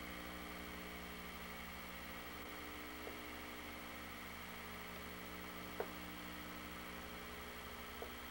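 Steady hiss and electrical hum with no distinct activity, broken by three short clicks, the sharpest a little before six seconds in.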